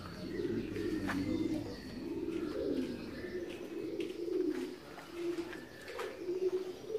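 Racing pigeons cooing: low warbling coos, one phrase running into the next almost without a break.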